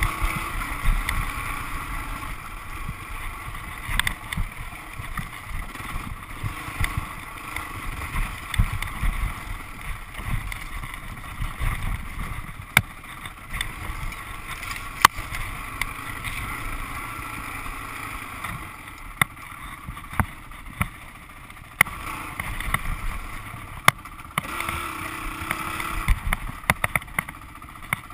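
Dirt bike engine running at low speed over rough, rocky ground, with a short rise in revs near the end. Sharp knocks and clicks come through throughout.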